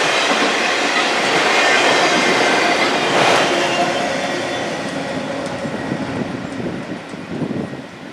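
Auto rack freight cars rolling past on the rails, wheels clattering with a faint squeal and a sharp knock about three seconds in. The sound fades steadily through the second half as the train moves away.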